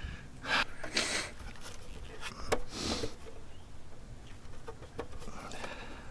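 Lumary camera bird feeder's plastic housing being handled: a few light clicks, about two and a half and five seconds in, among soft rustling and short hissy bursts.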